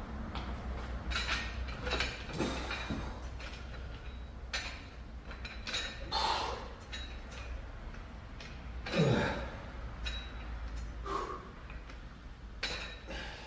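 Light clinks, knocks and creaks of dumbbells and an adjustable incline bench being handled during a set, over a steady low hum. One louder sound, falling in pitch, comes about nine seconds in.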